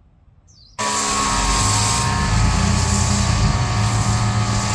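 Greenworks 2300 PSI brushless electric pressure washer kicking on suddenly about a second in. It then runs with a steady motor-and-pump hum under the loud hiss of the high-pressure spray through the foam cannon.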